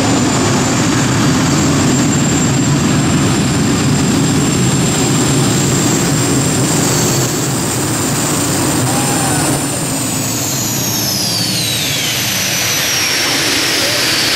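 Three Isotov TV2-117 helicopter turboshaft engines on a modified pulling tractor, howling at full power with a steady high whine. About ten seconds in the whine begins to fall as the turbines spool down.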